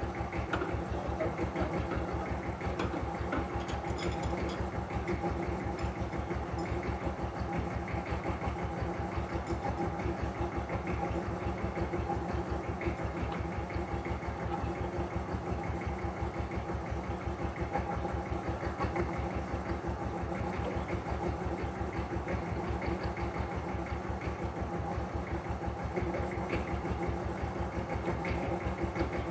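An engine running steadily at idle, with an even low throb.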